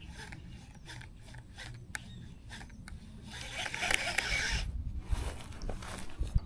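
Fishing rod and reel being worked: scattered light clicks, then a zipping whir lasting over a second from about three and a half seconds in.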